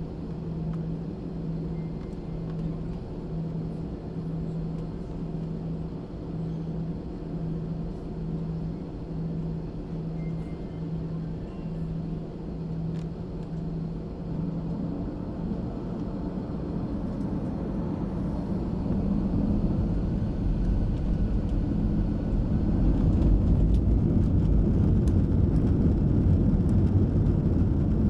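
Airbus A320 jet engines heard from inside the cabin: a low, evenly pulsing hum, then about halfway through the engines spool up and a deep rumble builds and stays loud, as take-off thrust is applied.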